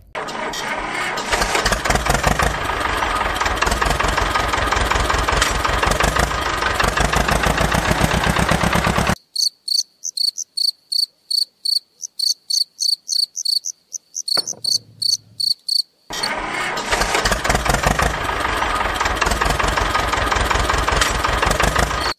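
Small engine running with a fast, even putter. About nine seconds in it stops and crickets chirp in quick, regular pulses for about seven seconds, then the engine starts up again.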